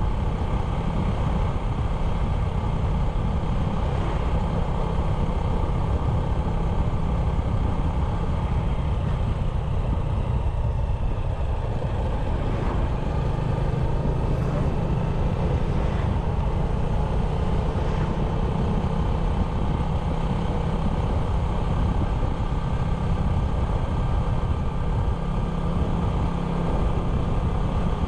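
97cc motorbike engine running steadily while riding, with a constant low rumble.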